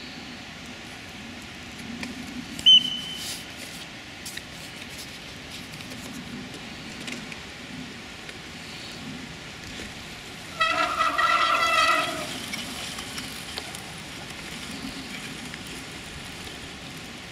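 A horn toots for about a second and a half a little past the middle. Earlier, about three seconds in, a single sharp high-pitched ping is the loudest moment, and a steady outdoor hiss runs underneath.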